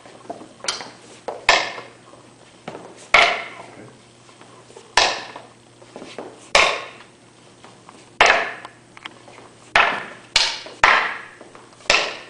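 Wing Chun butterfly knives clashing together, metal on metal: about a dozen sharp strikes at irregular intervals, each ringing briefly, as blades block and cut.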